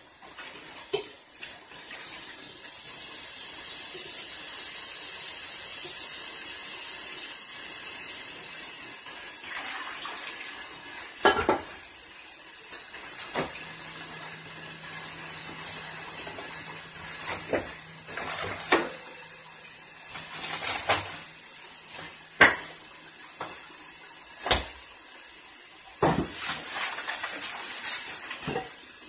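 Kitchen tap running into a sink while dishes are washed, then pots, pans and dishes clanking and knocking against each other a dozen or so times through the second half.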